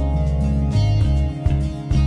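Background music: an instrumental track with plucked guitar-like notes over a steady low bass line.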